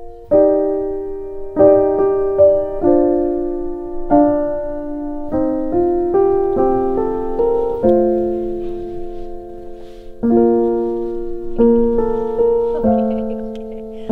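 Slow solo piano music: gentle chords and single notes struck every second or so and left to ring out.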